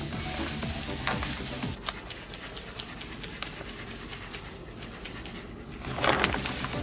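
Wet squishing and crackling of hair dye being squeezed from an applicator bottle and massaged through the hair with gloved hands to lather it, with small clicks throughout. About six seconds in, a louder rubbing rustle starts.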